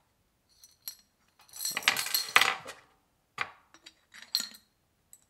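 Small metal puzzle parts clinking and rattling against the glass of a Grecian bottle puzzle as it is handled: a few separate clinks, a dense rattle from about one and a half to three seconds in, then a few more clinks.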